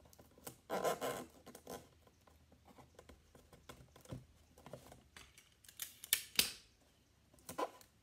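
Construction paper and tape rustling and crinkling as they are pressed and folded onto a milk carton, in irregular bursts, loudest about a second in and again about six seconds in.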